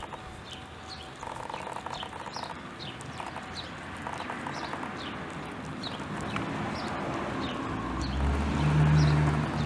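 Domestic cat chewing a vole, short wet crunches and clicks as it bites through bone, with a bird chirping a short falling note about twice a second. A low hum swells near the end and is the loudest sound.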